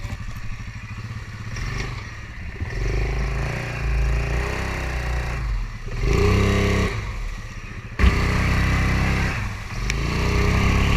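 ATV engine working under load while towing a stuck quad out of deep mud, revving up twice. There is one sharp knock about eight seconds in.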